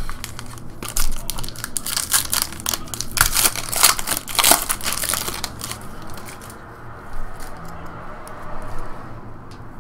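Foil wrapper of a 2015 Panini Prizm Football card pack crinkling and tearing as it is opened by hand. The crackling is densest in the middle and thins out near the end.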